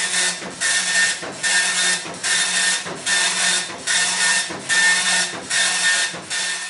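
Printer printing line after line as data is read off a 9-track tape: a rhythmic run of rasping mechanical bursts, a little more than one a second with short gaps between, over a steady low hum.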